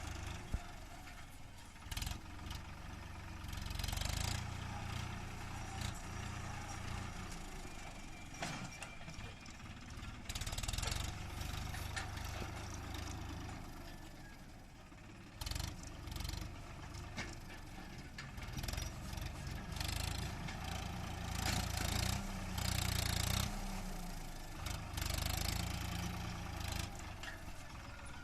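Swaraj 963 FE tractor's diesel engine running, its sound swelling and easing every few seconds, with scattered clatter.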